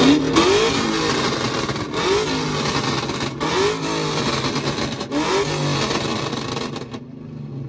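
Car engine revved up repeatedly: about four quick rising revs, with a few short sharp cracks in between.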